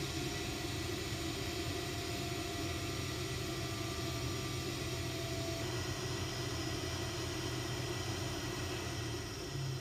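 Ideal Mexico HE30 gas boiler running: a steady hum of its combustion fan and lit burner, the fan known to be a bit noisy, as the boiler drops back toward idle once up to heat. The tone shifts slightly about six seconds in.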